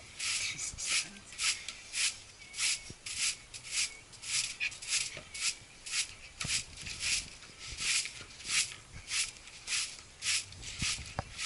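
Regular scraping strokes, about two a second, like a hand tool or brush worked back and forth at a steady pace, with a few soft knocks.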